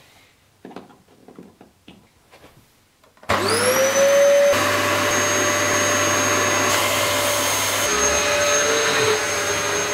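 Canister vacuum cleaner being switched on. A few faint clicks come first, then about a third of the way in the motor starts with a whine that rises in pitch as it spins up. It then runs steadily on carpet.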